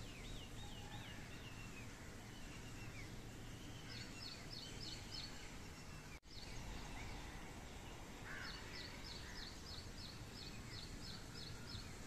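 Faint small songbird singing: a few quick looping notes at the start, then two runs of short high chirps at about four a second, the second run lasting about three seconds. A steady low background rumble runs underneath, with a brief dropout about six seconds in.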